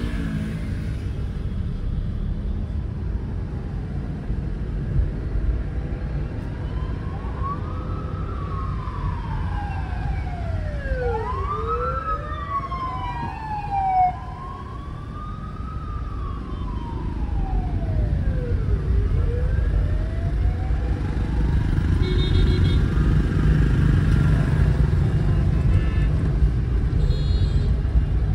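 Steady low rumble of a car driving in city traffic, with a siren wailing slowly up and down from about a quarter of the way in until about three quarters through, two wailing tones overlapping at times. The traffic rumble grows louder near the end.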